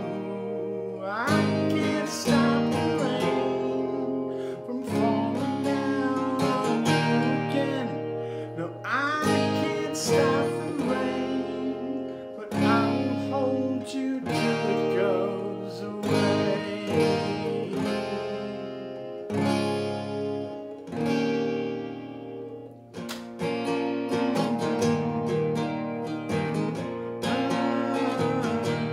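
Solo acoustic guitar strummed in a steady rhythm, with a man singing over it at times.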